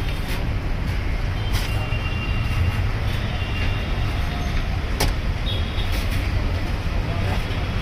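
Steady low rumble of road traffic, with one sharp click about five seconds in.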